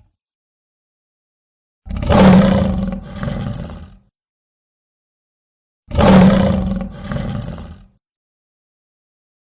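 Tapiraphant creature roar sound effect played twice, identically: each is about two seconds long, a loud roar followed straight away by a softer second roar, with dead silence between the two.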